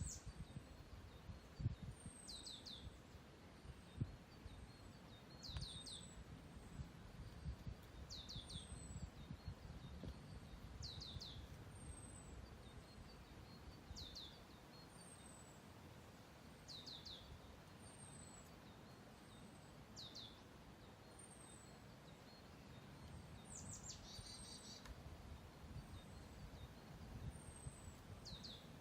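A songbird calling over and over at a steady pace, about once every three seconds: each call is a thin high note followed by two or three quick downward-sliding notes. A faint low rumble runs underneath.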